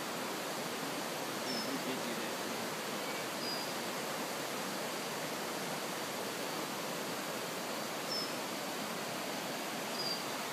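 Steady outdoor background hiss with no clear single source, with a few faint, short high chirps scattered through it.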